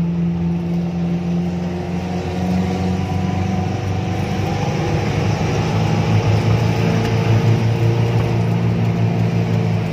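Engine of an off-road vehicle running steadily under way, heard from the driver's seat, its low drone shifting a little in pitch about halfway through.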